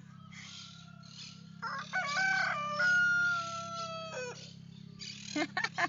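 A rooster crowing once: a single long call of about two and a half seconds, holding one note and dropping off at the end. A few quick knocks follow near the end.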